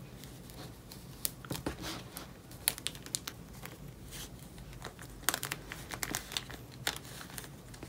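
Photocards being slid into and out of plastic binder sleeve pockets: quiet crinkling and rustling of the plastic, with scattered small clicks and ticks.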